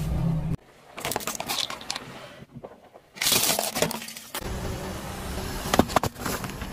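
A car tyre rolling over and crushing a string of small objects one after another, split by sudden cuts: crackling and sharp cracks as a red plastic toy breaks apart, then clicks as an aluminium drink can buckles under the tyre. A low car engine rumble sits under some of the pieces.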